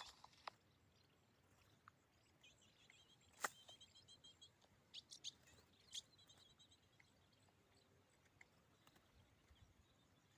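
Faint, short bird chirps in two brief runs, over quiet background. A few sharp clicks, the loudest about a third of the way in.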